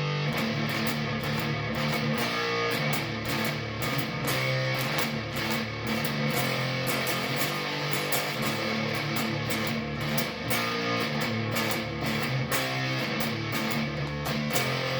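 Electric guitar, a Xavier PRO830 Tele-style fitted with a GFS humbucker, played through a fuzz effect: chords strummed in quick, repeated strokes.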